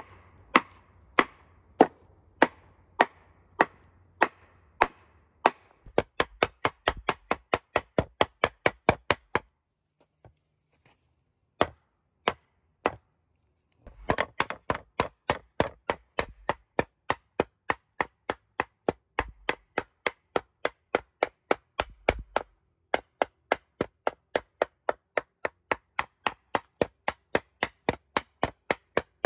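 Heavy cleaver chopping raw chicken breast into mince on a wooden cutting board. The strikes are single and spaced at first, then settle into a fast steady rhythm of about four chops a second. There is a pause of a few seconds near the middle broken by only three strikes.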